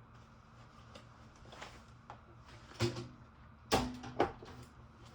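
Three knocks and clunks from the typewriter's hard carrying case being handled and set down, the loudest about three and a half seconds in, followed by a short ringing hum.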